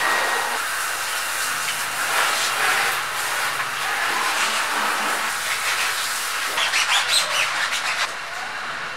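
Water spraying from a garden hose nozzle onto a car's wheel and wheel well, a steady hiss. Near the end come several seconds of irregular wet scrubbing and splashing as a soapy sponge works the tire.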